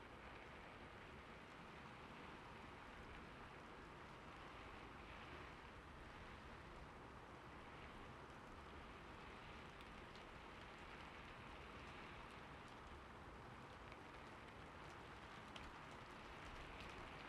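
Near silence: a faint steady hiss, like light rain, with slow soft swells and a few faint ticks near the end.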